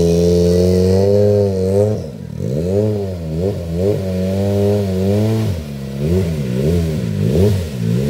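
Ford Fiesta RS WRC rally car's turbocharged 1.6-litre four-cylinder engine held at steady revs for about two seconds, then blipped up and down in a series of quick revs.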